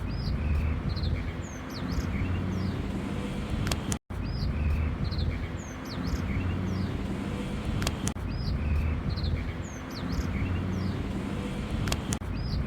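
A small bird repeating short, high, sharply curved chirps, several a second, over a steady low rumble. The same few-second phrase recurs about every four seconds.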